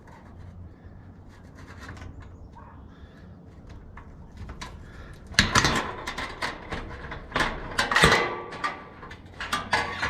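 Irregular clanks, knocks and scrapes of a steel hat channel and a metal clamp being handled and positioned. The sounds are faint at first and grow loud and busy about five seconds in.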